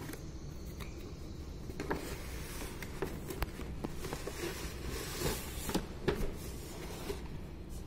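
Cardboard toy box being opened by hand: scattered rustles, scrapes and small knocks of the cardboard flaps and the plastic display window.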